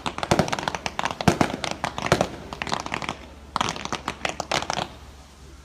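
Fireworks finale: rapid bangs and crackling bursts coming in dense clusters, with a brief lull midway, thinning out near the end.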